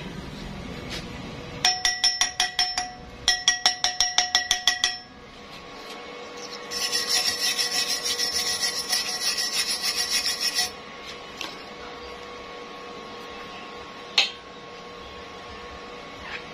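Wire brush scrubbing a steel pipe by hand in quick back-and-forth strokes, with a ringing tone: two short runs of strokes, then a longer steady run. A single sharp knock comes near the end.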